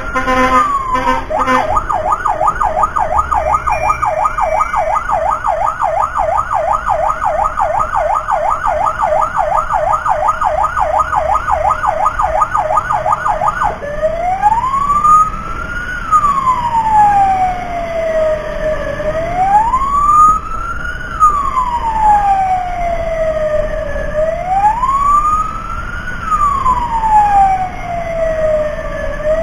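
Emergency vehicle siren on a fast yelp, about four sweeps a second, switching about fourteen seconds in to a slow wail that rises and falls roughly every five seconds. A second, fainter siren wails alongside.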